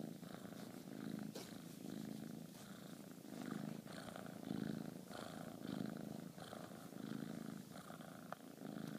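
Bengal kitten purring steadily while being stroked, the purr swelling and fading about once a second.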